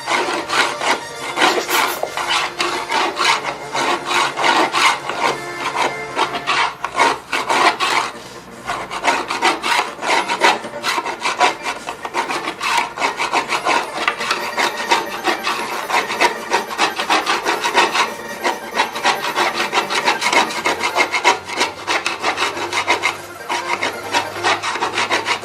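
Wood being carved and scraped by hand, a continuous run of quick, rough rasping strokes without a pause.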